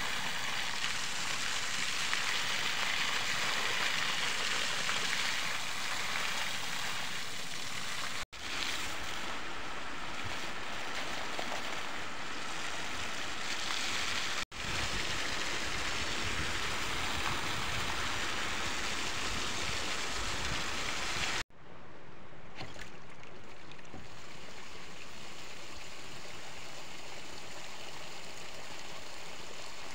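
Water gushing from a pump hose and splashing onto a drained, muddy pond bed: a steady rush of pouring water. It cuts off briefly three times, and after the last break it is duller.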